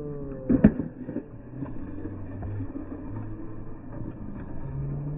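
Stunt scooter hitting a metal-edged concrete ledge with a sharp clack about half a second in, then its wheels and deck scraping and rolling along the ledge and the concrete in a steady rough rumble.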